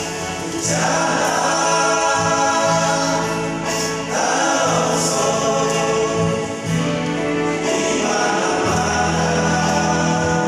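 A men's vocal group singing a sacred song together in harmony over steady instrumental accompaniment, in phrases with brief breaks between them.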